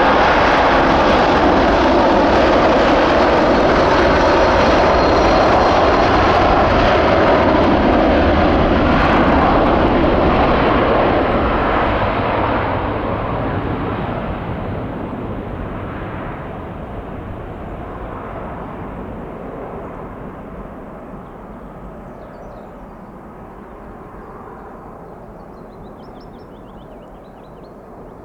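Boeing 747-400 freighter's four jet engines at take-off thrust, a loud steady roar for about the first eleven seconds that then fades steadily as the jet climbs away, the high end dropping out first.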